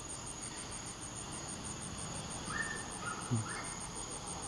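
Insects chirping: a steady, high-pitched pulsing of about six pulses a second, with a few short, fainter tones about two to three seconds in.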